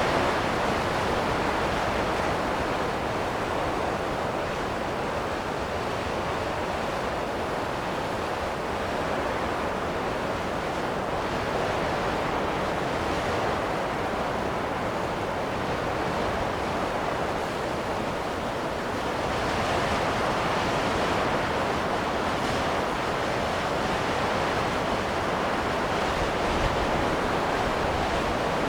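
Wind blowing in gusts: a steady rushing that swells and eases slowly, a little stronger about two-thirds of the way through.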